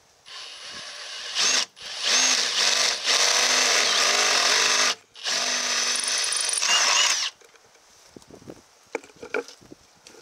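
Cordless 18-volt drill boring a hole through the sheet metal of a pickup's firewall in three runs: a short, lighter one, then a long, loud run of about three seconds and another of about two, each stopping suddenly. A few light clicks follow.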